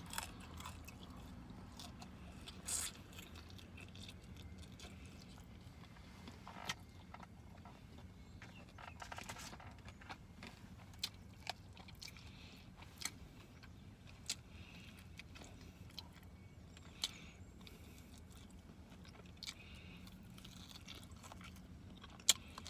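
A person eating lemon pepper chicken wings: chewing and biting, with scattered short mouth smacks and crunches over a faint low hum.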